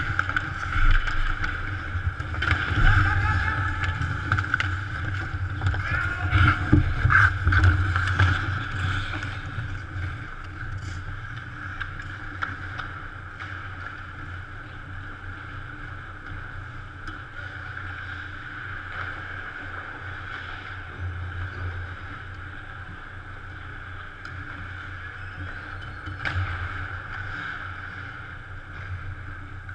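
Ice hockey play around the goal: skates scraping on the ice and sticks and puck clattering, busiest and loudest in the first ten seconds, then quieter with the odd knock, over a steady hum.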